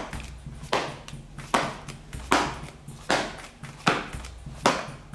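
Leather baseball glove (Kubota Slugger) being snapped shut again and again: six leather slaps, evenly spaced a little under a second apart, as the shaped pocket folds flat in an outfielder-style close.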